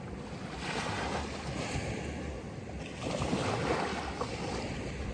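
Sea waves washing onto a beach, swelling about a second in and again around three seconds in, with some wind on the microphone.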